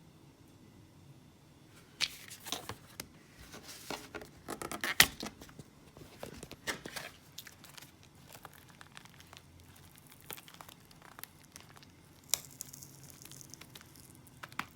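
Card-and-plastic retail packaging of a microSD card being torn and crinkled open by hand: irregular rips and crackles that start about two seconds in, with the loudest sharp rip about five seconds in. The plastic inside resists tearing by hand.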